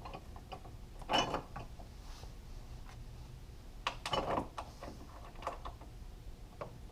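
Small metal clicks and clinks of a bolt with a lock washer and flat washer being started into a threaded hole on a motorcycle frame, in two short clusters about a second in and about four seconds in.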